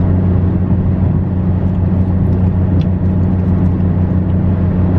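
Steady low drone of a car on the move, engine and road noise heard from inside the cabin.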